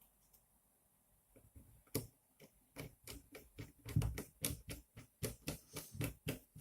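Small sharp clicks and taps of screws and nuts being fitted into acrylic frame plates, starting after a second or so of quiet and coming a few times a second.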